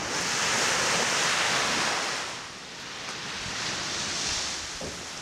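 Small waves breaking and washing up a sandy beach, in two swells: a louder one in the first two seconds and a smaller one about four seconds in.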